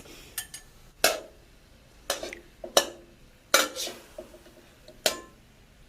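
Cooking utensils clinking and knocking against cookware, about six separate strikes at irregular intervals, some with a short metallic ring.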